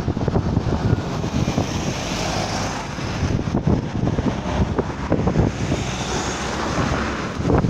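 Road traffic passing close by, with wind buffeting the microphone; the road hiss swells about two seconds in and again around six seconds.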